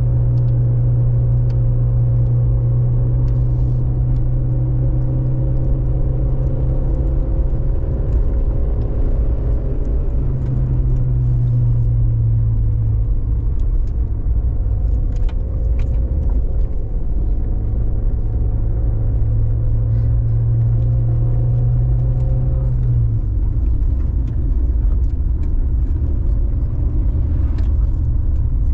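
Motor vehicle engine running steadily with a low rumble; its hum shifts up in pitch about ten seconds in and drops a little over twenty seconds in.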